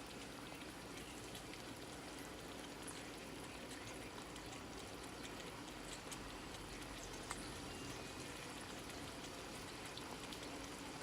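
Ground beef and diced onions sizzling steadily in a pot, an even hiss with a few faint ticks.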